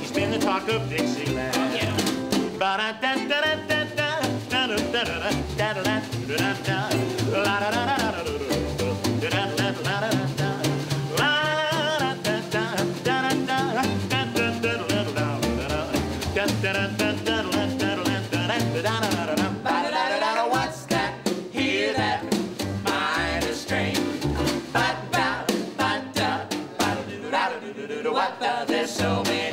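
Acoustic swing trio playing: a ukulele strummed, a snare drum struck in a steady swing rhythm, and an upright double bass, with singing over them.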